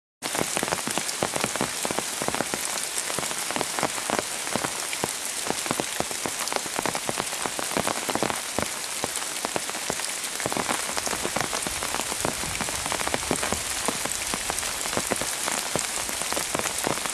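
Heavy rain pouring down: a dense, steady hiss thick with single drops striking close by. It cuts in abruptly at the start.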